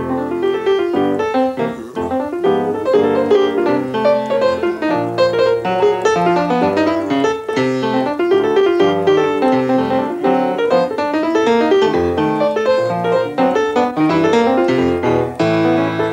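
Solo jazz piano, with bass notes and chords under a busy run of notes in the right hand, starting suddenly right after talk.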